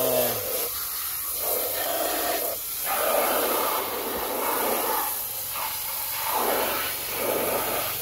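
Water hissing from a garden hose spray nozzle and splashing on a muddy plastic toy car. The spray comes in uneven surges a second or two long, with brief dips between them.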